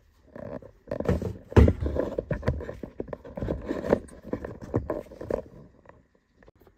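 Chainsaw parts being handled: a busy run of irregular clicks, knocks and scraping, which fades out about a second before the end.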